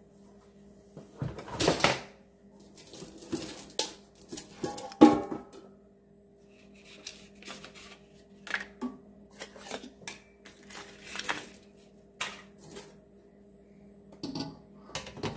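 Parts of a new Farberware deep fryer being unpacked and handled: cardboard packing rustling and tearing off, with scrapes, knocks and clicks from the metal housing and the enamelled oil pot. The loudest sound is a single ringing clank about five seconds in.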